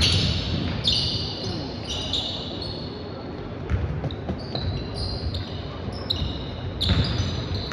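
Basketball game play on a court: a ball bouncing, with many short, high-pitched sneaker squeaks on the floor and players calling out.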